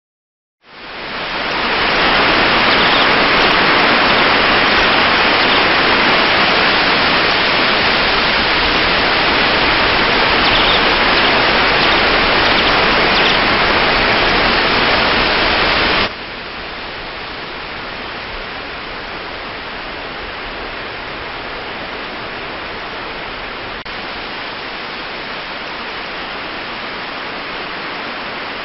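Waterfall cascading down a rock face, a loud, steady rush. About sixteen seconds in it cuts off abruptly to a quieter steady rushing hiss.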